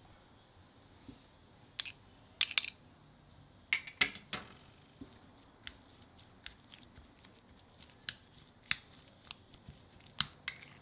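A metal spoon clinking against a small glass bowl while stirring a thick chili-powder and garlic seasoning paste: a series of sharp separate clinks, loudest about four seconds in, with quieter clinks every second or two after.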